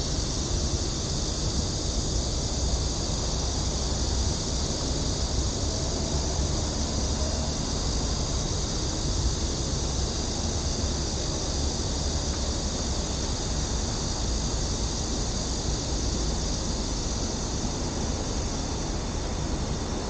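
Steady outdoor ambience: a continuous high-pitched drone of cicadas in the trees over a low, steady rumble.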